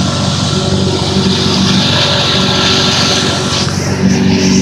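Motorboat engine running steadily under way, with the rush of water from the boat's wake. It gets a little louder near the end.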